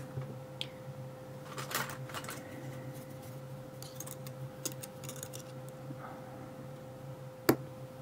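Small metal clicks and scrapes from a padlock's cylinder and brass plug being taken apart by hand with a pick-like tool. There is one sharp click near the end. A steady low hum sits underneath.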